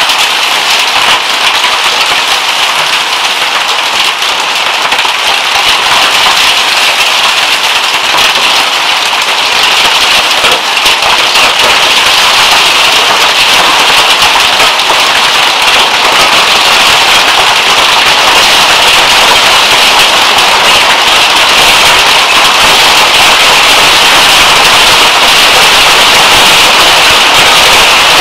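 Heavy hailstorm: a loud, dense clatter of hailstones and driving rain pelting down, growing a little louder about ten seconds in.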